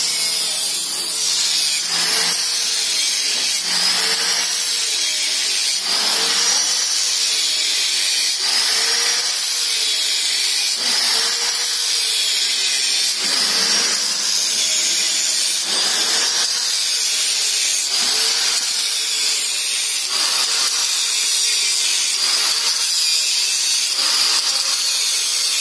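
Handheld angle grinder grinding metal on a motorcycle's lower frame. Its motor pitch dips and recovers about every two seconds as the disc is pressed into the work.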